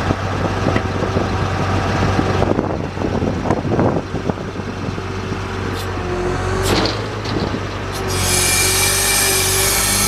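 2006 GMC C7500 aerial truck's engine running steadily, with scattered clicks and knocks midway. About eight seconds in, a louder hiss and a slowly rising whine start up over it.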